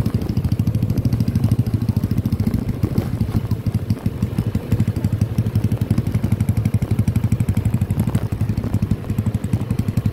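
Motorcycle engine running at a steady cruise, close to the microphone, with a fast, even pulsing beat.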